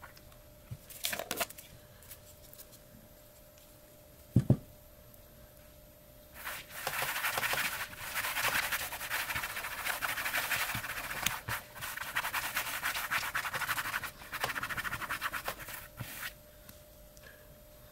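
Hands rubbing and pressing over a leather pouch lying on a towel, a dense scratchy rubbing that runs for most of the second half and stops and starts a few times. A single sharp knock comes about four and a half seconds in.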